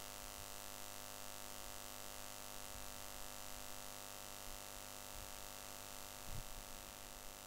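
Steady electrical hum and hiss of the recording's background noise, made of many fixed tones over a faint hiss, with a soft low bump about six seconds in.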